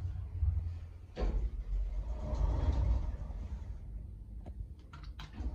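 Schindler hydraulic lift car running with a steady low rumble inside the cab, with a thump about a second in. It then arrives, and its doors slide open with a few clicks near the end.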